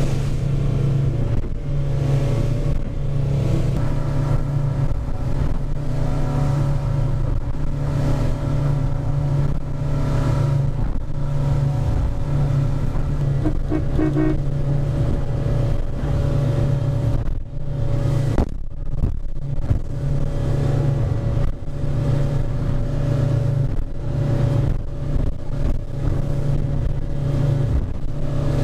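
Boat engine running steadily at cruising speed, heard from inside a small pilothouse cabin, with water rushing along the hull; a brief drop in loudness about two-thirds of the way in.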